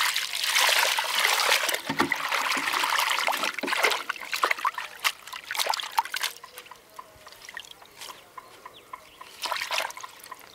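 Water poured from a plastic jug into a glazed bowl of leaves, a steady splashing trickle for the first few seconds. Then hands swish and rinse the leaves in the bowl, with scattered splashes and drips that thin out, and a brief flurry of splashing near the end.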